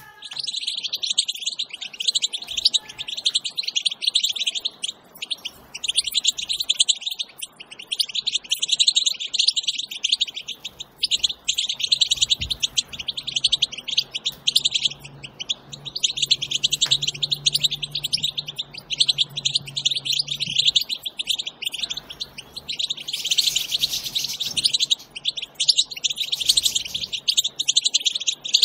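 European goldfinches twittering: the rapid, dry chattering contact call that breeders call batbata. It comes in dense runs of a few seconds with short breaks between them.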